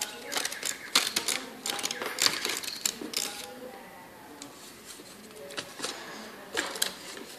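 Decorative-edge craft scissors snipping paper in quick clicking cuts: a run of snips in the first three seconds or so, then a few scattered snips.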